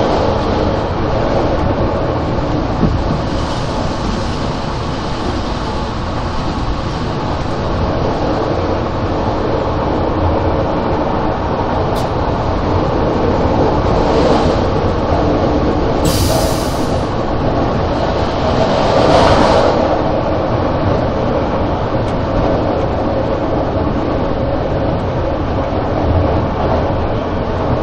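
Stadler GTW 2/6 railcar running along the line, heard from the driver's cab: a steady rumble of wheels on rail and running gear. A short high hiss comes about sixteen seconds in, and the noise swells louder a few seconds later.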